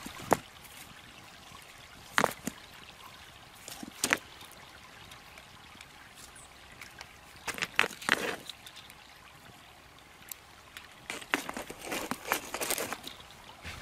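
Stones knocking against each other as they are set one at a time into a campfire's edge to heat as cooking rocks, a series of sharp clacks with clusters near the middle and end, over a faint steady trickle of creek water.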